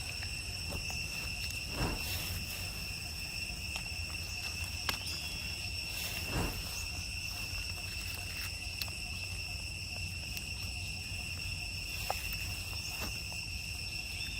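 Insects, crickets or cicadas, chirring as a continuous high-pitched drone on one steady pitch, with a few faint clicks and knocks.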